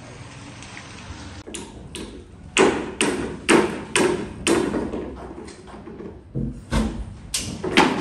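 Repeated heavy knocks and bangs, about two a second from around a second and a half in, with a brief pause past the middle: slab formwork being struck and stripped on a concrete building frame.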